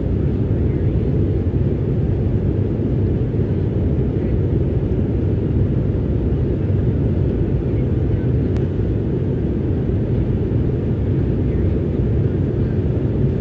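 Jet airliner cabin noise while taxiing: a steady low rumble of the engines at low thrust and the aircraft rolling along the ground, heard from inside the cabin.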